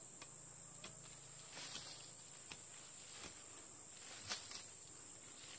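Steady high-pitched insect drone, like crickets, with scattered faint clicks and taps, the loudest about four seconds in.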